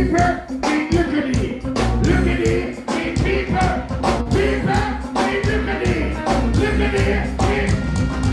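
Live dancehall music played loud through a stage sound system: a performer sings into a microphone over a steady beat with heavy bass.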